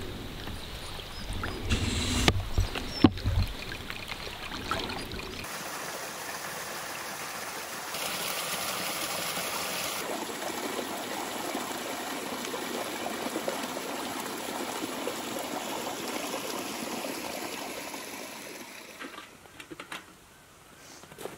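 Wind rumbling on the microphone with a few sharp handling knocks, then, from about five seconds in, a steady trickling and washing of water at a pebble shoreline that fades away near the end.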